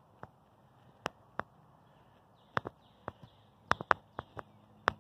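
Footsteps on a paved road: irregular sharp clicks and taps, bunched more closely about three to four seconds in. Faint birds in the background from about halfway.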